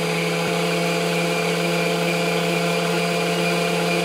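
Planetary stand mixer's electric motor running steadily at slow speed, beating cake batter, with a constant hum.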